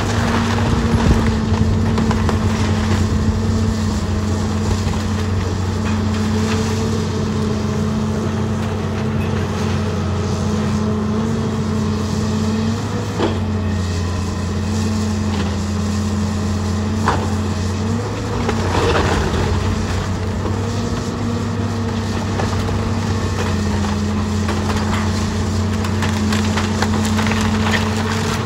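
John Deere 270C LC excavator's diesel engine running steadily, its pitch dipping briefly now and then. Over it, barn timbers and siding crunch and splinter under the bucket, with a few sharp cracks midway.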